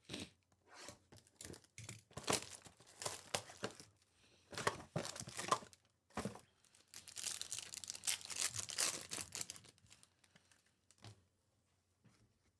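A box of baseball cards being torn and crinkled open, its plastic and foil wrapping ripping and rustling in irregular bursts. It dies down about ten seconds in, leaving a single light tap.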